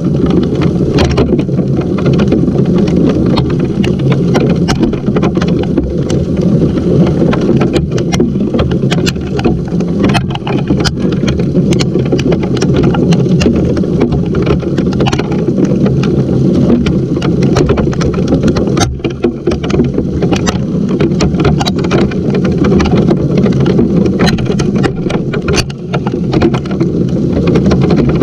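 Hailstorm with rain coming down hard: a loud, steady rush with many sharp ticks of hailstones striking close by.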